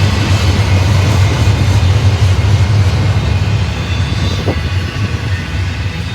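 Intermodal freight train cars rolling past on the track: a loud, steady rumble of steel wheels on rail.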